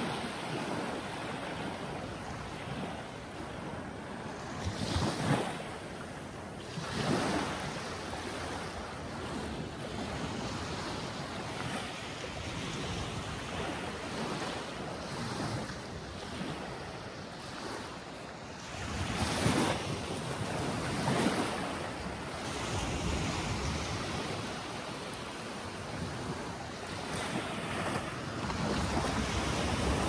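Small sea waves breaking and washing up the shore in a steady wash, with several louder surges as bigger waves come in, about 5, 7, 19 and 21 seconds in. Wind rumbles on the microphone underneath.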